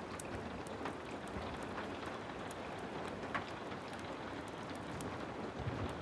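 Heavy rain falling steadily, with scattered sharp crackles from a wood fire now and then.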